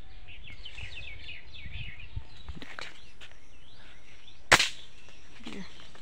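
Small birds chirping in quick short calls through the first few seconds, then a single sharp snap about four and a half seconds in.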